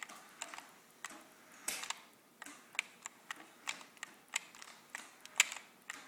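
A run of light, sharp clicks and ticks at uneven spacing, roughly one or two a second.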